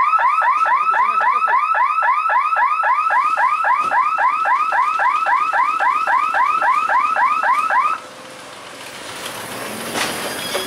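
Electronic warning siren sounding a fast repeating rising-and-falling chirp, about three or four a second, which cuts off suddenly near the end. A low rumble then builds.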